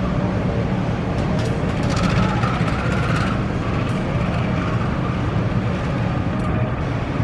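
CC 201 diesel-electric locomotive's engine running steadily as the locomotive rolls slowly along the station tracks on a shunting move.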